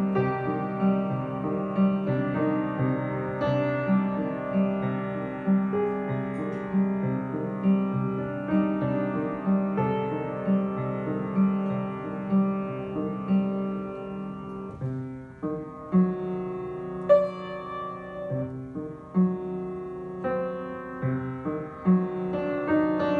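Upright piano played solo: a slow melody over a steadily repeating low accompaniment, which drops away for a moment about fifteen seconds in before the playing picks up again.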